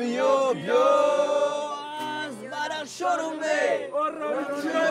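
A man singing a song to an acoustic guitar, with other male voices singing along.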